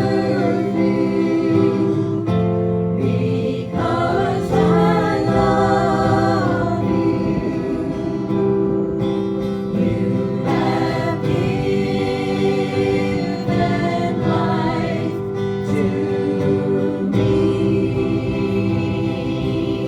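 Gospel song sung by several voices with instrumental accompaniment.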